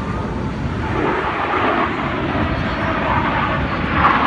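Airplane engine noise, steady, swelling slightly near the end.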